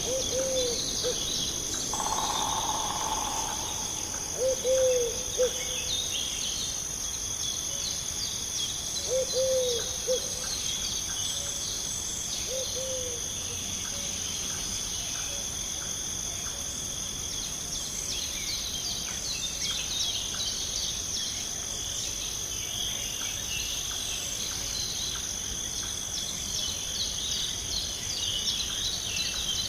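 Steady high-pitched chorus of insects in a forest ambience, with a bird's short, low, arched call heard four times in the first half.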